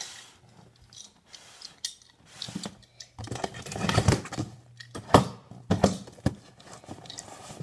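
Fingers picking at and tearing tape off a cardboard box, with scratchy rustles and knocks of the cardboard being handled, busiest in the second half and with one sharp snap about five seconds in.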